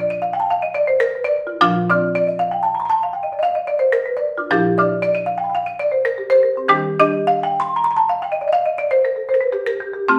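Solo concert marimba played with four mallets: fast runs of notes climbing and falling in waves. Each wave starts over a low bass note that rings on, about every two to three seconds.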